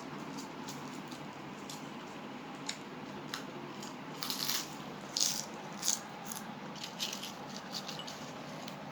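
Sour potato chips crunching and rustling: scattered crackling clicks, with louder rustling bursts about four to six seconds in.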